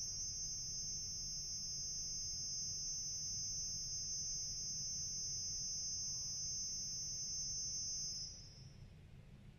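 Pipe organ holding a dense cluster of very high, piercing, steady tones over a low rumble. The high cluster stops about eight seconds in, leaving a brief echo in the hall and the faint low rumble.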